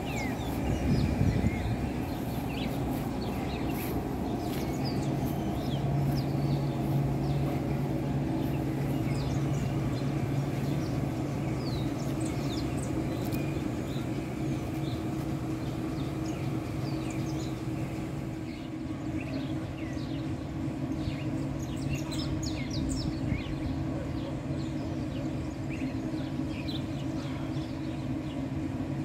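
A steady low machine hum from the truck and grain-loading machinery, a little louder for a stretch in the first half, with many short bird chirps over it.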